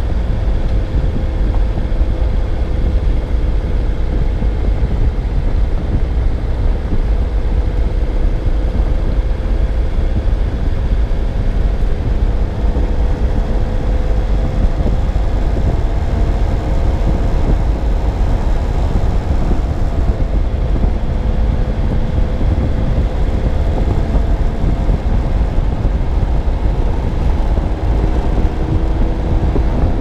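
Car driving steadily along a road, heard from a GoPro mounted on the car: a heavy low rumble of wind and tyres with a steady engine hum that drifts slowly in pitch.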